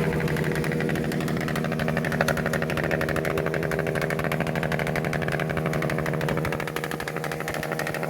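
Honda Super Cub-type motorcycle's single-cylinder four-stroke engine running steadily at a held rev, a little quieter near the end.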